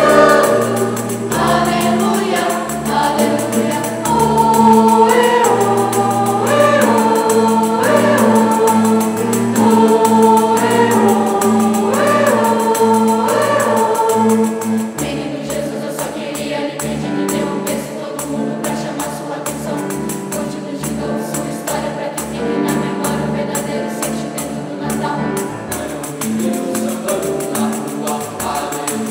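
Mixed youth choir singing, accompanied by a tambourine. About halfway through, the voices drop back and a steady tambourine rhythm comes to the fore under softer singing.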